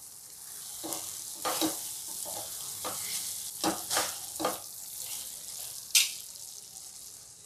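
Wooden spatula stirring baby potatoes in a thick masala in a stainless steel pan, with a steady sizzle and scattered sharp scrapes of the spatula against the pan, the loudest about six seconds in.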